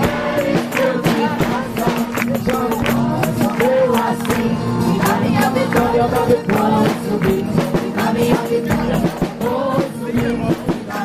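Live gospel music: voices singing a Portuguese chorus over a steady percussion beat.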